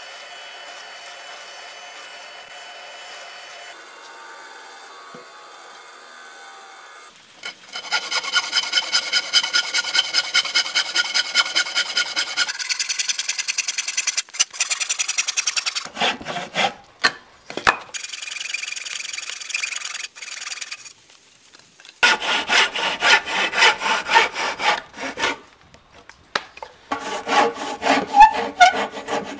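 A hand tool working wood with fast back-and-forth strokes, several a second, in a few separate bursts. Before the first burst there is a faint steady hum.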